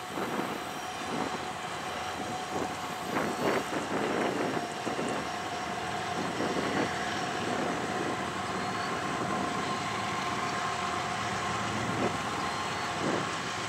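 Freight train hauled by GE diesel locomotives, heard from a distance rolling across a steel truss bridge: a steady rumble with a faint steady whine, broken by irregular clanks, most of them in the first few seconds.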